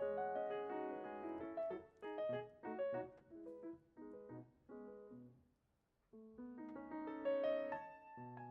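Solo piano playing chords and melody, with a brief pause a little past halfway before the playing starts again.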